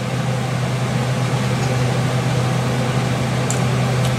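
Room humidifier running with a steady hum and hiss. A couple of faint ticks near the end.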